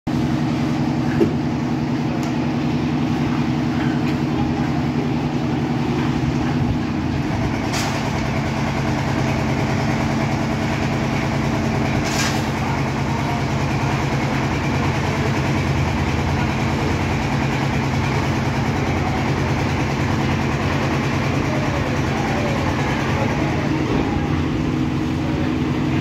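Drum concrete mixer running with a steady low mechanical drone. From about seven seconds in until near the end it turns rougher and churning, with a couple of faint knocks, while buckets of material are tipped into the turning drum.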